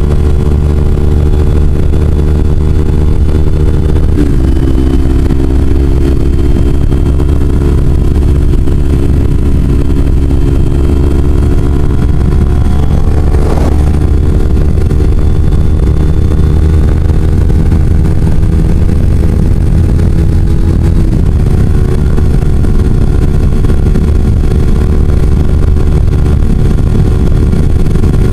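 Kawasaki Ninja 250's parallel-twin engine running at highway cruising speed, under heavy low wind rumble on the microphone. Its note drops suddenly about four seconds in and again about twenty-one seconds in, then slowly climbs back as the bike pulls.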